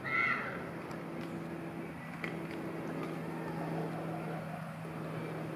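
Steady low mechanical hum, like an idling engine, over general background noise. A brief high-pitched call right at the start and a single click a little after two seconds.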